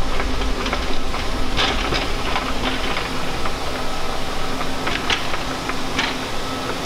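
Metal shop ambience: a steady machinery hum and low rumble with irregular metallic clicks and rattles, as a loaded steel cart is pushed across the shop floor.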